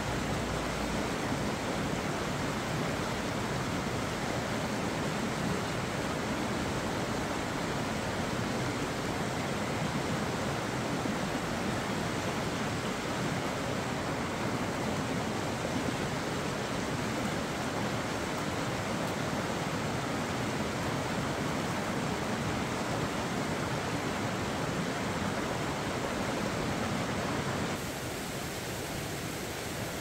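Steady rush of a mountain stream spilling over a low concrete weir and through rocky rapids. Near the end it drops to a quieter, softer stream sound.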